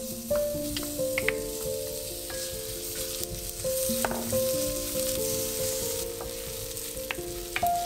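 Sliced onion sizzling in a hot stainless steel frying pan, the sizzle starting suddenly as the onion goes in, while a wooden spoon stirs it and clicks against the pan a few times. Soft background music plays underneath.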